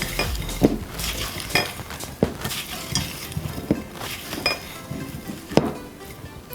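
Boiled potato pieces being stirred together with spices, with a spoon in a bowl: wet scraping and mashing with irregular clinks of the spoon against the bowl, roughly one a second.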